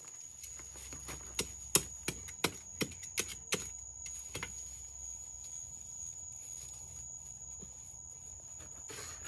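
A wooden stick striking packed earth: about eight sharp knocks in a quick run of roughly two seconds, one much louder than the others, then a single knock a little later.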